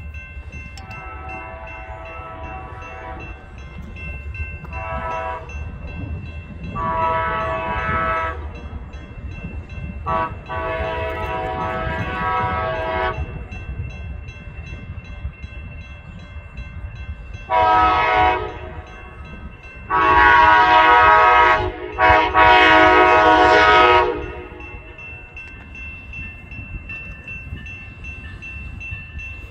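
Amtrak passenger train's locomotive air horn sounding a series of blasts as the train approaches, growing louder; the loudest are two long blasts near the end, close together, each held about two seconds.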